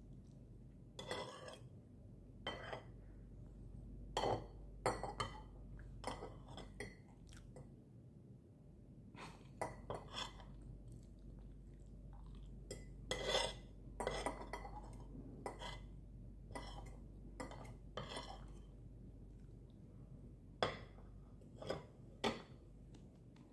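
Metal spoon and fork clinking and scraping on a ceramic plate as fried rice is scooped up, in scattered irregular clicks, with soft chewing in between.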